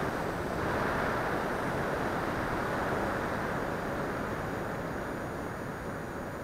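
Steady rush of wind over the onboard camera of a radio-controlled L-39 Albatros model jet in flight, a little louder in the first few seconds and easing slightly after.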